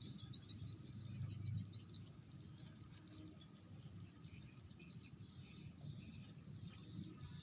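Faint, steady high-pitched chirping of insects such as crickets, a continuous rapid trill. Low rustling is heard in the first couple of seconds.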